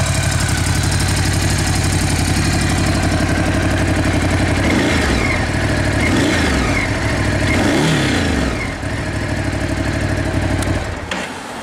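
Ducati Scrambler 1100's air-cooled L-twin on its stock exhaust idling, then revved in several short throttle blips from about five seconds in before it settles back to idle. It cuts off near the end.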